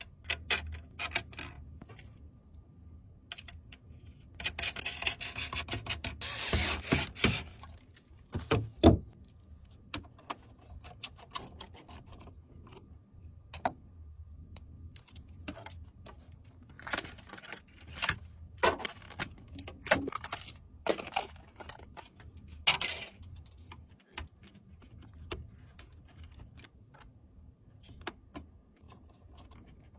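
PC components and packaging being handled during a build: scattered clicks and taps, a few seconds of rustling about five seconds in, and one loud knock near nine seconds.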